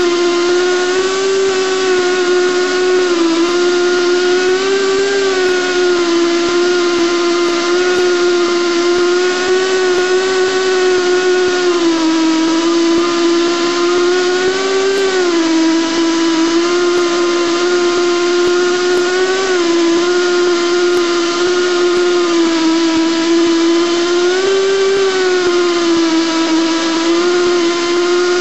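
Esco Prepzilla pipe end prep machine running steadily as its cutter bevels the end of a steel pipe weld coupon, a loud, even whine whose pitch sags briefly every few seconds.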